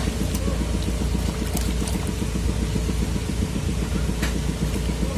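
Steady low rumble of a small engine or motor running at an even idle, with a few faint splashes of water as a hand works a cotton pad in a plastic tub.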